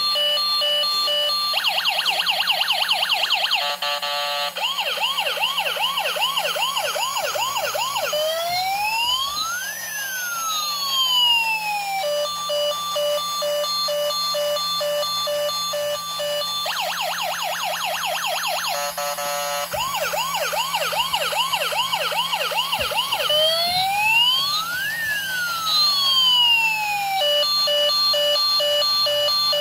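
Electronic emergency-vehicle siren stepping through its tones: a two-note hi-lo, a fast yelp, a slower yelp, then a single long wail that rises and falls. The sequence repeats about every fifteen seconds, twice here.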